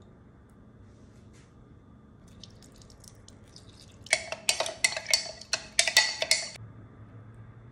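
Rapid clinking in a small glass measuring jug as the honey and lemon juice in it are mixed, starting about four seconds in and lasting about two and a half seconds, with the glass ringing under the clicks.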